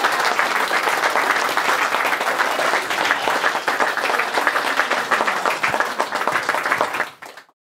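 Seated audience applauding, a dense steady clatter of many hands clapping that fades out quickly near the end.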